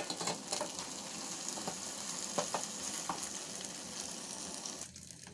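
Omena fish frying in hot oil with onions, garlic and ginger: a steady sizzle with scattered crackles, cutting off sharply near the end.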